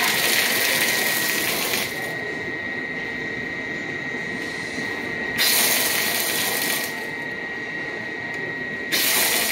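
Water rushing through the blue flush valve of a Pentair Everpure filter head into its drain tube while the newly installed cartridges are flushed. It surges into louder hiss three times, starting and stopping abruptly as the valve is opened and shut, over a steady hiss with a thin steady whistle.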